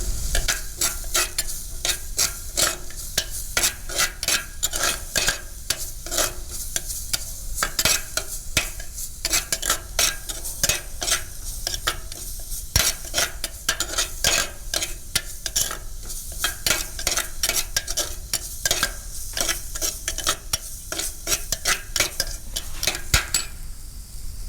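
Spatula stirring and scraping beetroot masala in a hot pan, quick irregular strokes over a steady sizzle of frying in oil.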